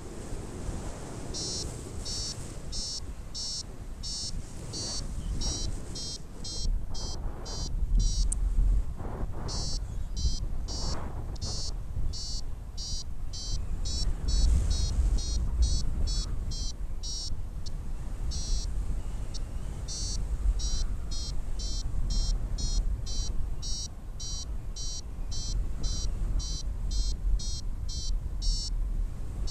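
Paragliding variometer beeping its climb tone, short high beeps about two to three a second that sound while the glider is rising, over low wind rumble on the microphone.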